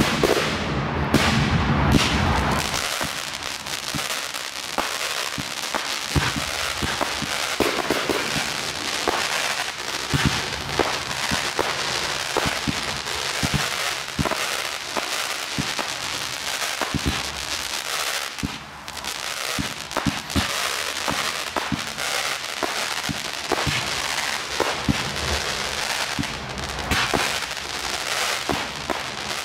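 Aerial fireworks crackling densely, a continuous fizz of small pops with scattered sharper cracks. A deeper rumble of shell bursts dies away in the first two to three seconds.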